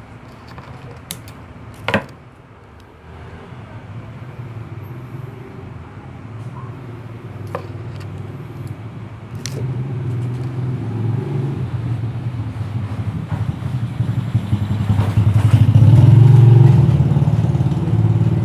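A motor vehicle's engine passing by, noisy, growing louder to a peak near the end and then starting to fade. A sharp knock sounds about two seconds in.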